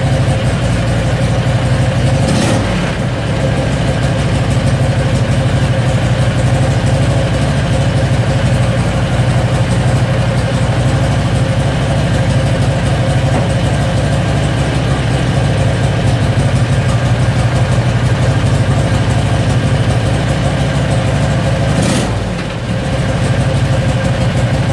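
Predator 670cc V-twin engine running steadily as it warms up, firing on both cylinders without surging or pulsing now that its electric fuel pump has a return line to the tank to ease pressure on the carburetor. The level dips briefly twice, about two seconds in and near the end.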